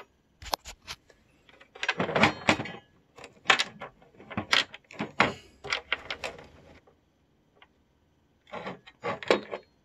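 Steel wall-mount bracket arm and a spacer being handled and set against the back panel of a TV: a run of short clicks, knocks and rattles, then a pause of about a second and a half before a few more near the end.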